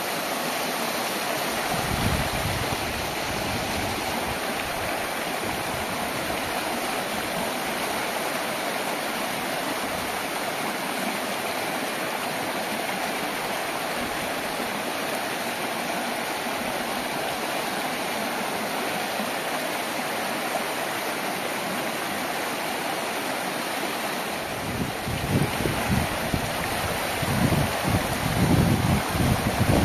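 Shallow mountain stream rushing steadily over bare rock slabs. About three-quarters of the way through, uneven low gusts of wind buffeting the microphone join the water.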